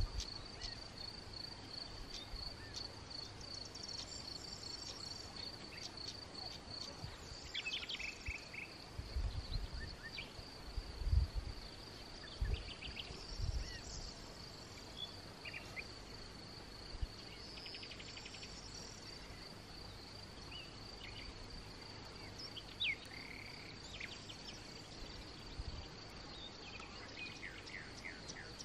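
A cricket trilling steadily in a high, finely pulsed tone, with scattered short bird calls. There are a few low thumps near the middle.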